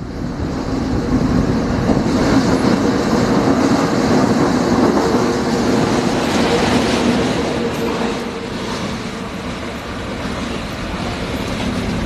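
A pair of CC206 diesel-electric locomotives running on the line. A steady rumble with a low engine hum swells loud about two seconds in, then eases slightly near the end.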